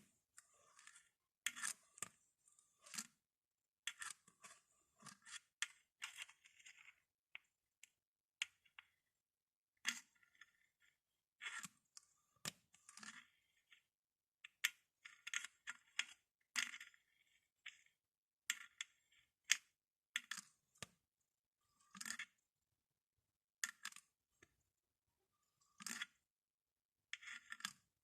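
Glass bottles tapped and clinked, in short separate clinks and taps with brief silences between them, about one every second or two.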